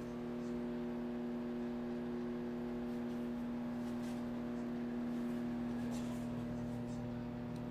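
Electrical appliance running with a steady mains hum. One of its tones drops out about three seconds in, and a deeper hum grows near the end.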